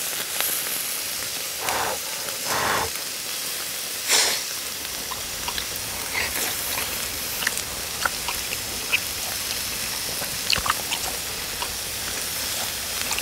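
Hanwoo beef slices sizzling on a hot grill grate: a steady hiss with scattered small crackling pops of spitting fat.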